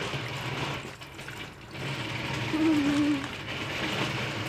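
Windscreen washer fluid being poured from a bottle into a car's empty washer reservoir: a steady stream of liquid that falters briefly about a second in and then runs on.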